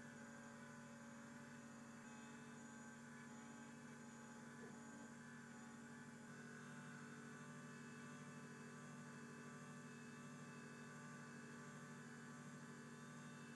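Faint, steady electric hum made of several steady tones, with no cutting, clicks or knocks.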